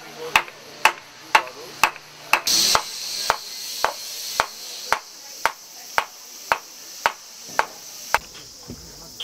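A round wooden mallet strikes a carving gouge into a wooden log, giving a sharp knock about twice a second in a steady rhythm. The strokes stop about eight seconds in.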